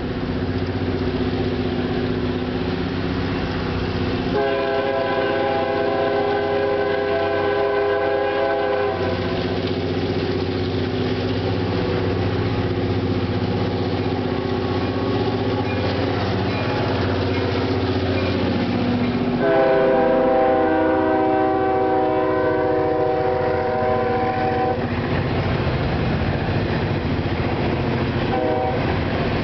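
CSX freight train led by a GP15T and an SD50-3 diesel locomotive passing, engines running steadily. The lead locomotive's multi-note air horn sounds two long blasts of about five seconds each, the second one loudest as the locomotives go by, then a short blast near the end as the empty cars roll past.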